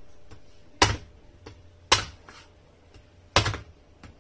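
A cleaver chopping into the hard shell of a calabash fruit on a cutting board: three sharp chops, a second or more apart, with faint small knocks between.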